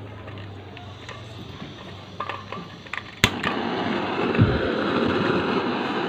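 Handheld butane torch on a gas canister being lit: a few light clicks, then a sharp ignition click about three seconds in, after which the flame burns with a steady hiss.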